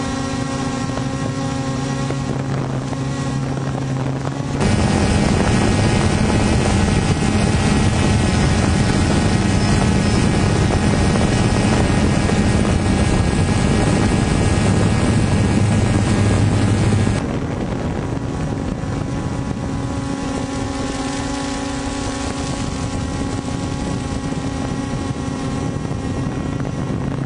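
Steady droning of the spinning rotors of a rotor aircraft hovering overhead, a held hum with overtones. Just under five seconds in it cuts abruptly to a louder, denser drone. About seventeen seconds in it drops back to the first, quieter sound.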